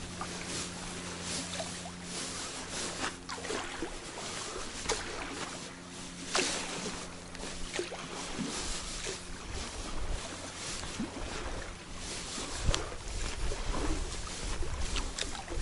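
Small boat on a river: water noise around the hull with scattered knocks, and a low steady hum that fades after about two seconds.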